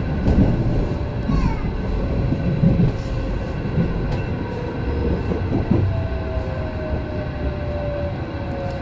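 Inside an MI09 electric train: the low rumble of the running train with a single motor whine slowly falling in pitch as it slows for a station stop.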